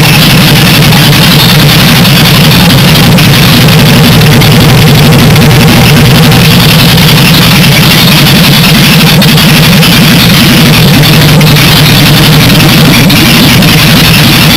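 Jaguar 4.2-litre XK straight-six running steadily at idle speed through short open exhaust pipes with no silencers. Very loud, an awesome amount of noise, on a cold start.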